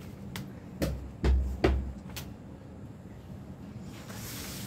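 Several dull thumps and clicks of handling on the tabletop, the two in the middle the loudest. Near the end comes a short brushing swish as a hand sweeps over the paper sheet.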